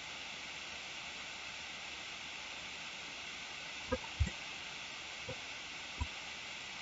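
Steady microphone hiss with four short, faint clicks in the second half, two of them close together.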